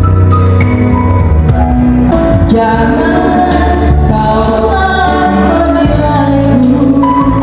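Music played on a single electronic keyboard (the 'solo organ' act) with steady bass notes, and a singer's voice entering about two and a half seconds in.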